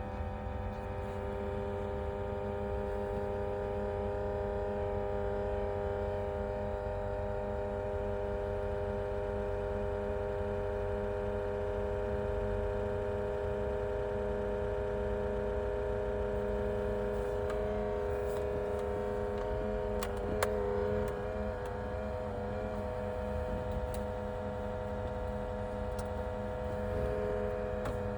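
Pioneer NEX car radio head unit giving off a steady, loud whine at start-up, several pitches held together, over a low rumble. The pitches waver briefly with a few clicks about two-thirds of the way through. The owner says this start-up whine is getting worse.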